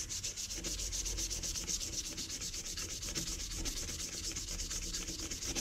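Light-grade sandpaper rubbed by hand against a metal motorcycle wheel-bearing spacer tube: a steady, rapid back-and-forth scraping that sands the scratches out of its scuffed side.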